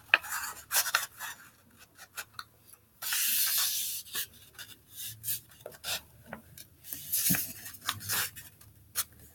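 A sheet of printer paper being folded and creased by hand: scattered crinkles and taps, with one steady rubbing stroke about three seconds in, lasting about a second, as the fold is pressed flat.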